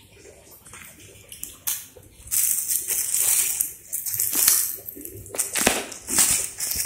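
Clear plastic fruit-protection bag crinkling and crackling as it is handled and pulled open on the branch. It starts about two seconds in as irregular crackling, with sharper crackles near the end.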